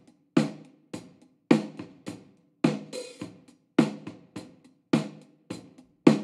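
Snare drum loop played through the Universal Audio Sound City Studios plugin's emulated RCA 77-DX ribbon close mic with the studio's room sound. A strong snare hit comes about once a second, with quieter strokes between, and each hit rings out briefly.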